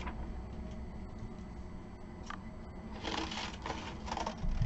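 Scissors cutting a corner off a sheet of card: a few short snips and paper rustles about three seconds in.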